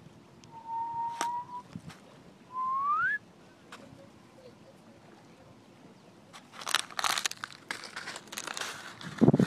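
Two whistled notes: a short steady one, then one that rises in pitch. About two-thirds of the way in come crackly crinkling and crunching sounds, fitting a plastic water bottle being chewed by a puppy.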